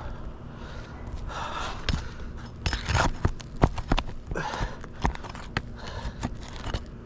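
A roofing snake tool working under asphalt shingles to free the nails: a run of sharp clicks and knocks, busiest about two to four seconds in, with scrapes in between.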